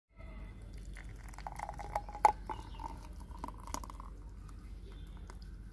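Thick mango lassi poured from a blender jar into a glass: soft wet splats and small clicks over a steady low hum, with one sharper click about two seconds in and a faint wavering tone for a few seconds.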